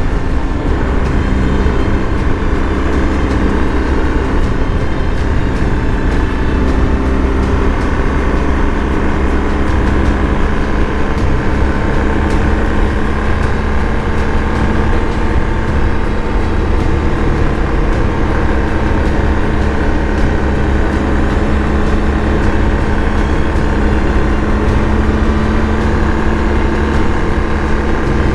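BMW R 1250 GS Adventure's boxer twin engine running steadily at cruise.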